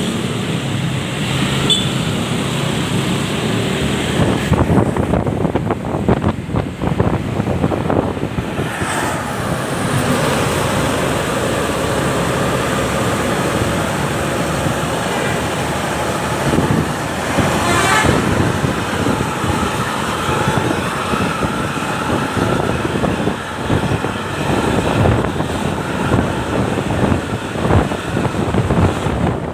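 Road traffic noise, with vehicle engines running and horn toots.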